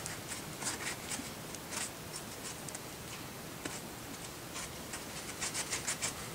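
Cloth rag rubbing over a cast-iron brake caliper half in brisk back-and-forth strokes, wiping off vinegar-softened rust and dirt; the strokes come in a quick run near the end.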